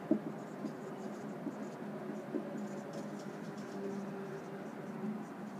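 Marker pen writing on a whiteboard: a continuous run of soft scratchy strokes as words are written out.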